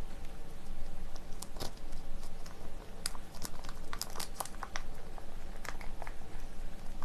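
Plastic instant-noodle sauce sachet crinkling in the hands as it is squeezed and wrung out to empty the last of the thick sauce, with irregular crackles.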